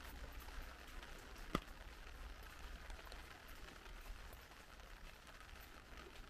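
Rain falling on a clear vinyl umbrella held overhead: a faint, steady patter of small drop taps, with one sharper click about a second and a half in.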